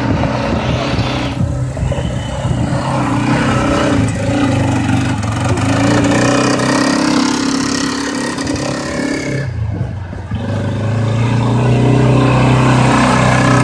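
ATV (quad bike) engine running under throttle, a steady mid-pitched engine note with a brief dip about ten seconds in.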